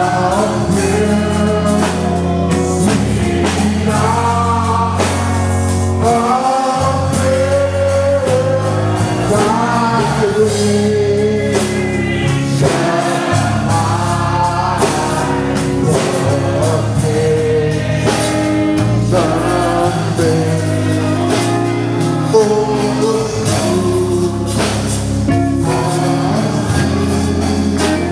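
Live gospel praise-and-worship singing by a group of voices with band accompaniment: held low bass notes under the melody and a steady beat.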